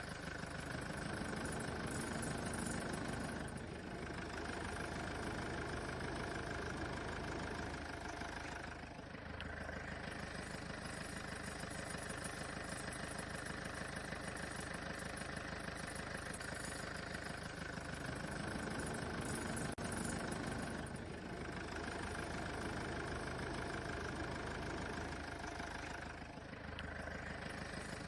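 Toyota Tundra idling with a knock, which the owner puts down to a faulty AC condenser.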